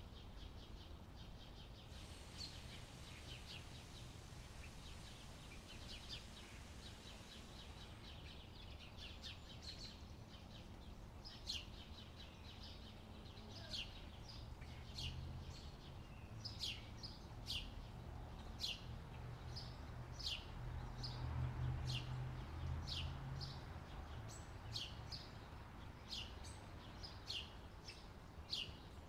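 Birds chirping: soft twittering at first, then a run of short, sharp chirps repeated about once a second from about a third of the way in, over a faint low hum that swells for a few seconds past the middle.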